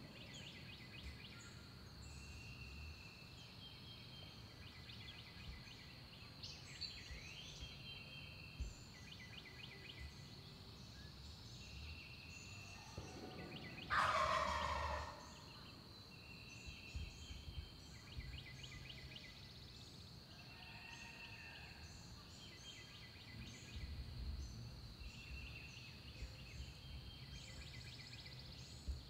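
Wild turkey gobbler gobbling once about halfway through, a single loud gobble lasting about a second.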